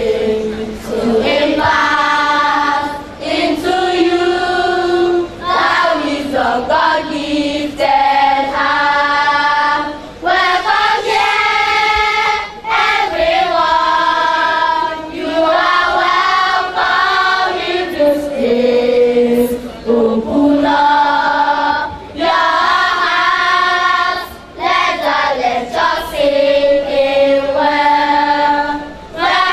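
A choir singing in phrases a few seconds long, with held notes and brief breaks between phrases.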